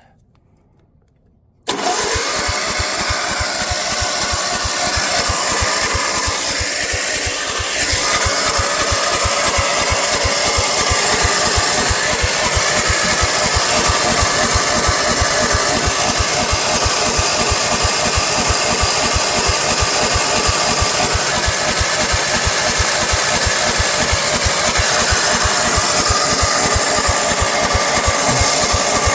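Tecumseh small engine on a walk-behind zero-turn mower starting cold after being flooded, with no cranking heard before it. It comes in suddenly about two seconds in and then runs steadily with a fast, even firing beat. It gets a little louder at about eight seconds.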